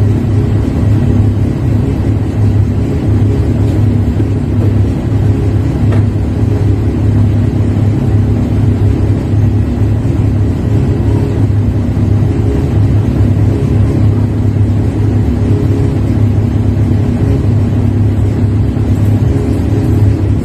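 Engine of heavy lifting equipment running steadily, a loud, even low drone with no revving.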